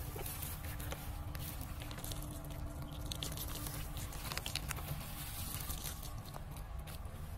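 Water poured from above, pattering and splashing onto loose soil and the leaves of a newly planted jackfruit seedling, thinning out near the end.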